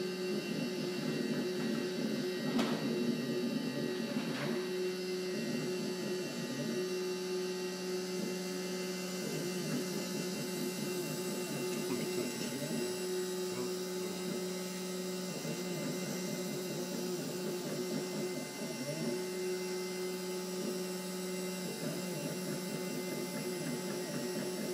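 CNC milling machine's spindle and axis motors running as it engraves lettering into a plate: a steady hum, with a humming tone that drops out and comes back every few seconds as the cutting path changes. Two short sharp ticks come early in the cut.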